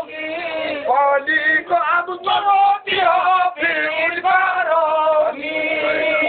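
Lucknow-style marsiya recitation: a voice singing the verses of an Urdu elegy in long, wavering held notes, with short breaks between phrases.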